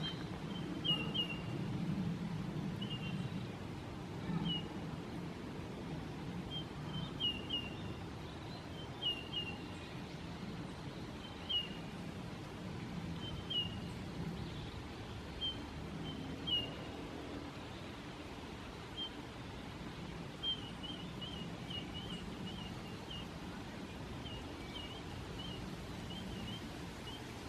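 Eurasian bullfinch giving short, soft whistled call notes, singly or two or three together, with a quicker run of calls near the end, over a steady low background rumble.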